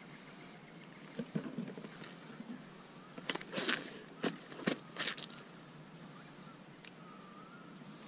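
Handling noise from a small bass and a vinyl fish-measuring mat across an angler's lap in a kayak: a few light rustles about a second in, then a cluster of sharp taps and scrapes around three to five seconds in.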